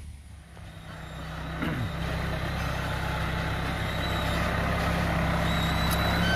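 Heavy diesel engine of a Scania-engined log-hauling tractor running steadily, growing louder as it approaches.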